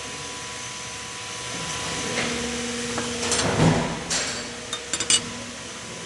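Metal knocks and clinks from handling welding test plates and tools, over a steady hiss and faint hum. The loudest is a low thump about three and a half seconds in, followed by a quick run of clicks.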